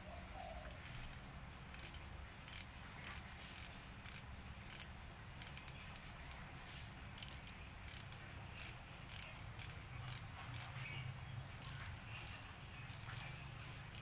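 A fishing reel being handled and worked, giving irregular sharp mechanical clicks, one to three a second, with a ratchet-like character.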